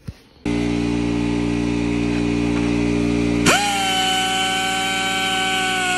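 Handheld rotary power tool trimming the plastic radiator fan shroud so it clears the exhaust headers. A steady hum starts about half a second in. About three and a half seconds in, a high whine comes in sharply and holds, slowly sinking in pitch.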